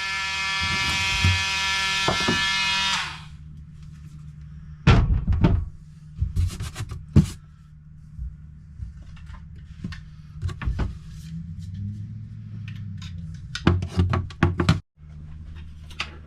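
Oscillating multi-tool buzzing at a steady pitch as it cuts into the camper wall, stopping about three seconds in. Then scattered knocks and thunks of handling, with two clusters around five to seven seconds and near the end.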